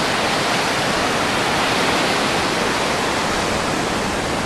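Surf breaking and washing up a sandy beach: a steady, loud rushing noise.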